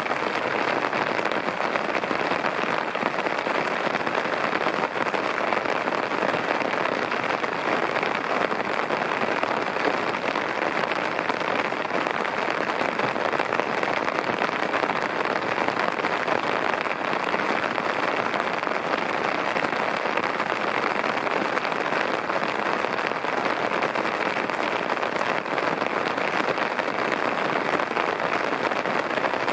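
Torrential rain falling steadily, a dense, even hiss of drops that holds at the same level throughout.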